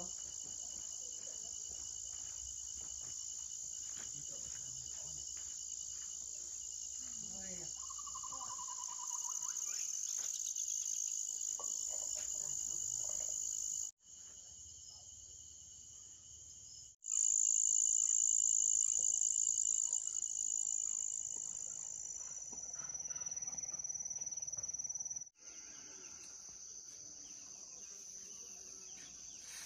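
Steady, high-pitched drone of insects, which cuts out briefly and changes in loudness abruptly three times. A short warbling call sounds about eight seconds in.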